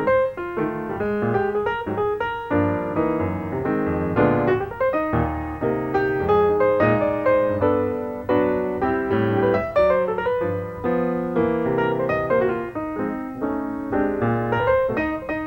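Piano music: an accompaniment of quick, closely spaced notes and chords that never pauses.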